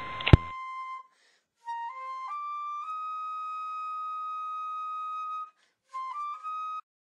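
A hiss with a steady high tone is cut off by a sharp click. After a short gap, a solo flute plays a few notes stepping upward to one long held note, then a brief rising phrase near the end.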